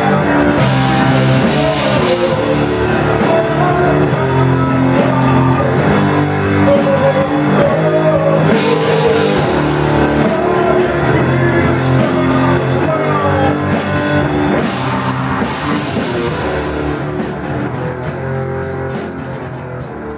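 Heavy metal band playing live: distorted electric guitar, drum kit with crashing cymbals, and vocals into a microphone. The music fades down over the last few seconds as the song ends.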